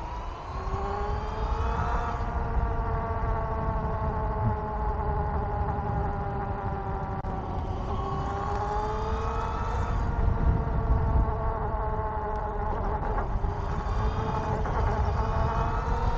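Electric bike motor whining under power, its pitch climbing and sagging with speed, over a low rumble of wind and tyres on the microphone.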